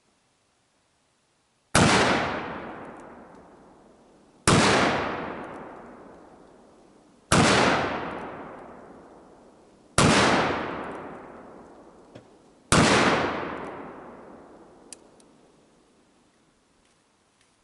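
Smith & Wesson .460 XVR revolver firing five shots, one about every two and a half to three seconds. Each loud report dies away over a couple of seconds.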